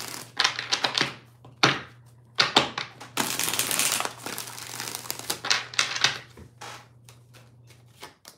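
A deck of tarot cards being riffle-shuffled by hand: papery flutters and sharp snaps as the cards are riffled and bridged together, in several uneven bursts, thinning to light clicks near the end.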